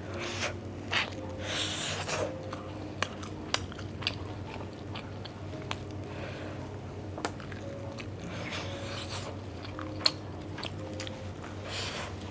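Close-miked chewing and biting of roast duck held in the fingers: wet mouth sounds with irregular sharp clicks.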